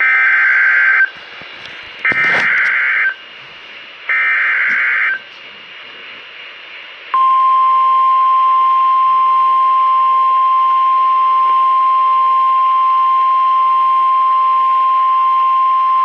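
NOAA Weather Radio alert coming through a weather alert radio's speaker: three one-second bursts of digital SAME header data, a second apart, then a single steady alarm tone held for about nine seconds. This is the alert header and warning alarm tone that announce a new warning, here a severe thunderstorm warning.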